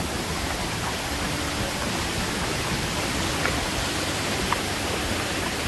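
Creek water rushing steadily as it pours over the edge of a low concrete ford and tumbles onto rocks.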